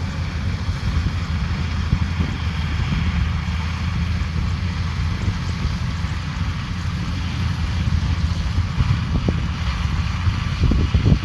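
Rice combine harvester running steadily under load, a constant low engine hum with mechanical rushing above it. Wind buffets the microphone in low thumps near the end.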